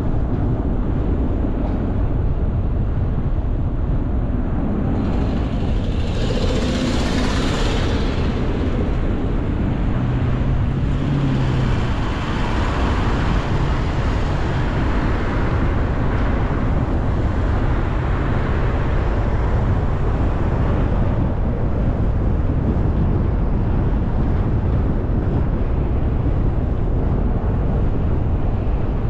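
Steady low road rumble and wind noise of a car driving on city streets, with two louder swells of hiss, one about six seconds in and a longer one through the middle.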